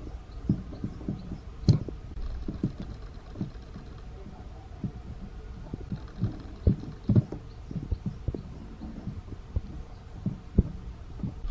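Handling noise from work on a mechanical alarm clock: irregular soft knocks and clicks, with a few sharper clacks about two seconds in and again around seven seconds in.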